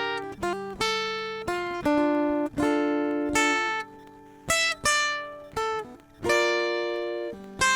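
Acoustic guitar playing a slow melody of plucked notes and chords, each struck cleanly and left to ring out, with a brief lull a little before the middle.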